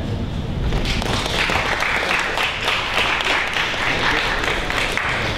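Audience applauding, starting about a second in and keeping up steadily.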